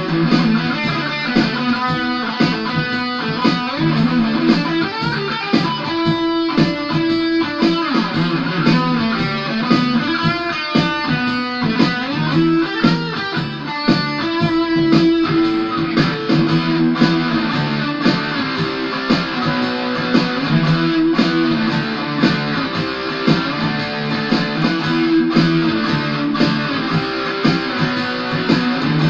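Ibanez AS73 semi-hollow electric guitar played through an amplifier: a run of single-note lead lines and phrases in the key of E.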